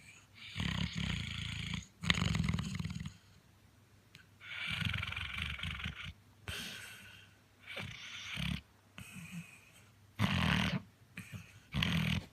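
Sleeping chocolate Labrador retriever snoring, about seven uneven breaths with short pauses between them.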